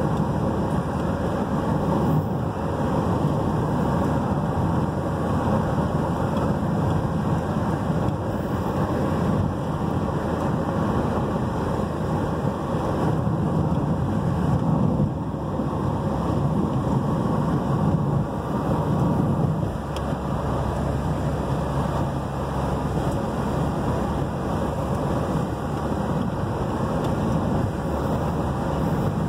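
Steady rumble of a car driving over cracked, patched asphalt, heard from inside the cabin: tyre and road noise with small rises and dips as the surface changes.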